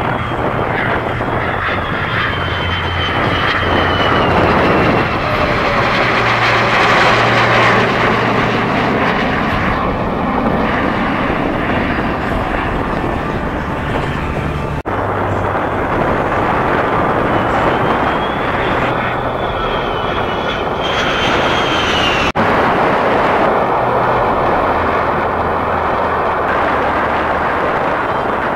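Steady jet engine noise from a formation of an F-22 Raptor, an F-35 and a P-51 Mustang flying past, with a whining tone that slides up and then down near the start and again a little after the middle. The sound cuts out for an instant twice, about halfway through and again a few seconds later.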